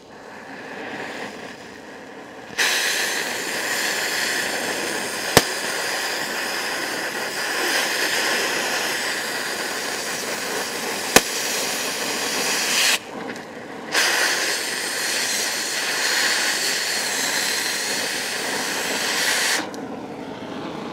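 Oxy-fuel cutting torch cutting a saddle into galvanized steel pipe: a quieter preheat flame for the first couple of seconds, then the loud, steady hiss of the cutting-oxygen jet, which stops for about a second near the middle, starts again and stops shortly before the end. Two sharp pops about six seconds apart from the galvanized coating popping and spitting in the cut.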